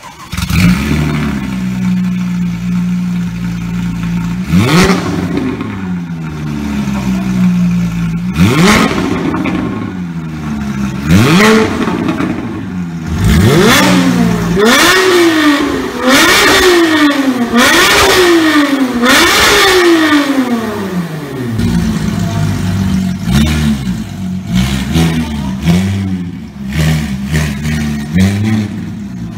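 Porsche 997 GT3 flat-six breathing through an aftermarket Fi exhaust, revved hard on the spot: a steady idle, then sharp blips that rise and fall a few seconds apart, then a run of quick revs one after another through the middle, settling back to a lumpy idle near the end.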